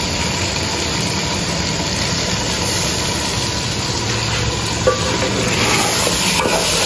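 Chicken and arbi curry sizzling over the flame in a large aluminium pot, with a steady rushing drone beneath it. The pot is stirred with a wooden spoon near the end.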